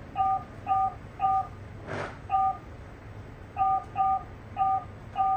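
Short two-tone key-press beeps, about eight of them at an uneven typing pace, as a password is keyed in on a touchscreen keypad. A single brief tap or click about two seconds in.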